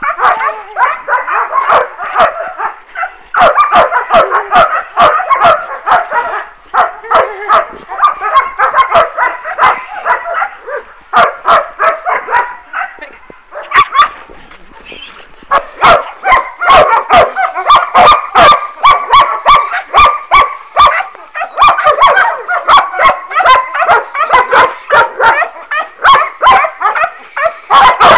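German shepherd puppies barking in rapid, high-pitched volleys while chasing and biting at a tug rag, with a few short lulls, the longest about fourteen seconds in.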